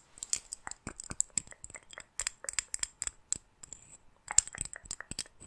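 Small metal earrings handled close to the microphone: a quick run of sharp little clicks and taps with a high metallic ring. There is a short pause about three and a half seconds in, followed by the loudest click.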